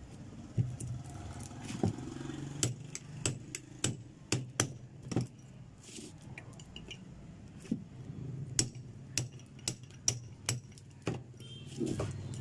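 Repeated sharp metallic taps, irregular and roughly every half second, as a ball-peen hammer strikes a steel rod used as a drift to knock a madhani churn motor's stator out of its casing. A steady low hum runs underneath.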